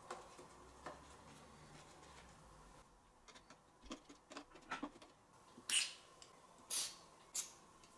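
Faint steady hum, then a run of small clicks and taps from about three seconds in, with three louder brief scraping sounds near the end: small hard objects being handled.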